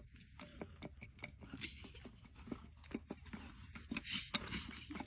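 Faint, irregular footsteps and taps on a snowy path, several to the second.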